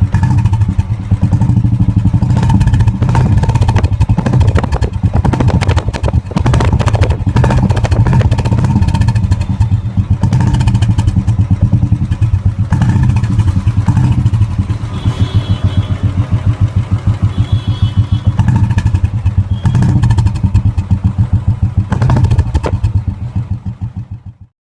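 Royal Enfield Classic 350's single-cylinder engine running through a short-bottle 'dholki' aftermarket silencer, giving a steady, rapid thumping exhaust beat that fades out near the end.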